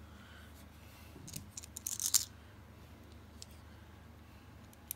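Small clicks and scrapes of a Lightning out-the-front (OTF) knife and a bit screwdriver being handled during reassembly: a short cluster of sharp clicks about two seconds in, a fainter click later, and one sharp click near the end.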